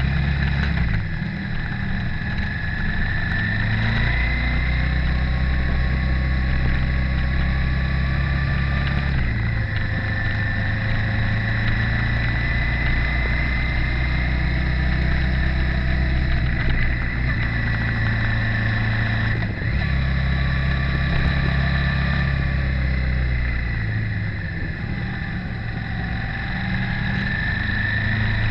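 Motorcycle engine running steadily at riding speed, its note changing in steps a few times as the revs shift, over constant road and wind noise.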